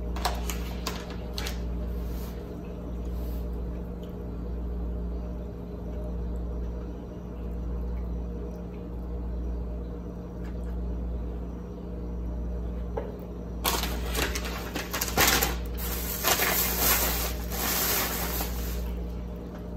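A thin plastic carrier bag rustling and crinkling as it is handled, loud for about five seconds near the end. Before it, a few light clicks of a plastic fork against a plastic takeout container, over a low steady hum.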